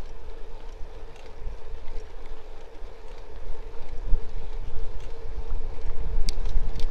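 Wind buffeting the camera microphone of a bicycle rolling along a paved road, a low gusty rumble with a steady faint hum underneath. Two light sharp clicks come near the end.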